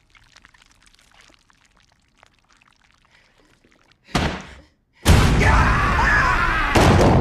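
Film soundtrack: faint scattered clicks, then a sudden loud noisy burst about four seconds in, and about a second later a loud, sustained noisy din with wavering high tones running through it.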